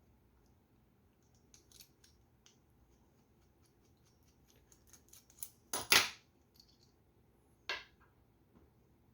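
Small metal parts of a fishing reel's handle and power knob clicking and clinking as they are handled and taken apart, with a few sharper clicks about five to six seconds in and one more near eight seconds.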